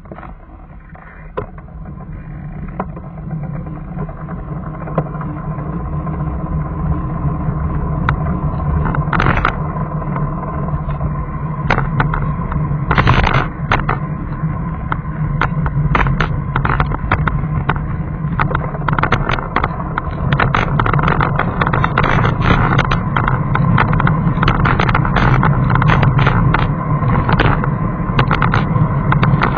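Engine and road noise of a vehicle moving off from a stop and picking up speed, growing louder over the first several seconds, then steady. A steady high hum and many short crackles and knocks run through it.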